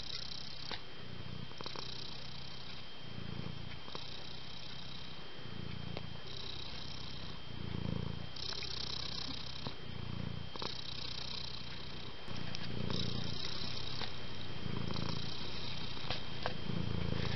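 Domestic cat purring close up: a low purr on each breath alternates with a higher, airy sound, about one breath cycle every two seconds. It gets louder for the last few seconds.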